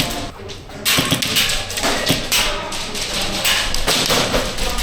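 Airsoft gunfire during a close-quarters game: an irregular run of sharp taps and thuds from guns firing and BBs striking walls and surfaces.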